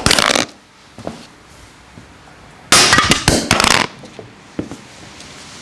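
Seatpost removal tool being wound up against a seized dropper seatpost in a jig: two loud bursts of clicking and grinding, about three seconds apart, with a few faint single ticks between.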